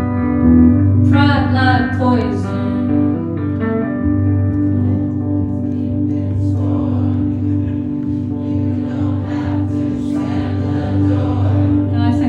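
Live performance of a slow indie rock song: electric guitar chords ringing under singing.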